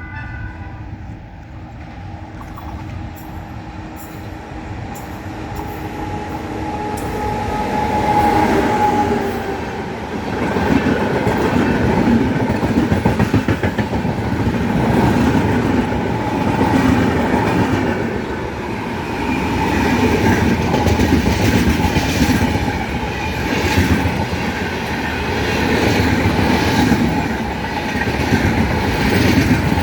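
An Indian Railways express train approaches, growing louder over the first eight seconds. It then passes close by with a steady rumble of wheels on rail and a rhythmic clickety-clack of the wheels over the rail joints. The tail of a horn blast is heard at the very start.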